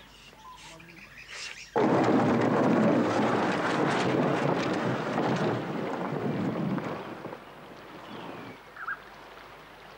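Loud rushing water from a rocky river cascade, starting abruptly about two seconds in and dying down over the following few seconds to a softer steady rush.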